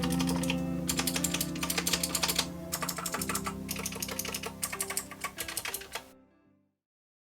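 Fast typing on a mechanical keyboard, a dense run of key clicks, over lo-fi hip hop music with sustained low chords. Both cut off abruptly about six seconds in.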